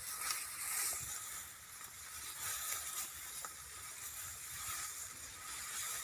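Rustling of ripe rice stalks and leaves brushing together as someone pushes through the standing crop: an uneven, hissy swish that swells and fades, with a few faint snaps.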